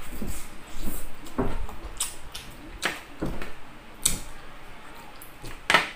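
Close-up eating sounds of a person eating with his fingers: scattered wet mouth clicks and smacks from chewing and taking food from the fingers, with a sharper smack near the end.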